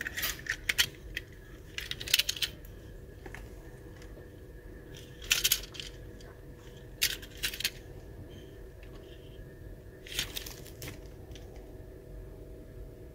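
Hard plastic toys clicking and clattering as they are handled and shifted in a plastic basket, in about five short bursts of clicks with pauses between, over a faint steady hum.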